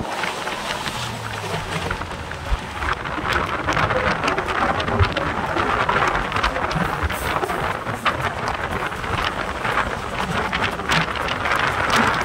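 Express passenger train running, heard from an open coach door: a steady loud rush of air over the microphone with many sharp clicks and rattles from the wheels on the rails.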